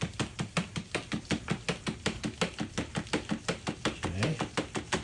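A cat making a rapid, even run of short clicking sounds, about six or seven a second, without a break.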